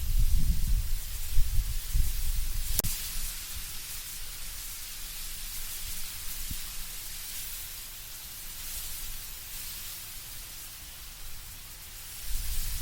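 Wind moving through autumn trees, the leaves rustling as a steady hiss, with gusty low rumbles in the first few seconds and again near the end. A single sharp click about three seconds in.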